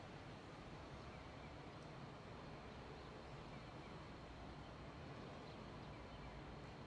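Very quiet, steady outdoor background noise with a low hum and hiss, and a few faint, short, high chirps scattered through it.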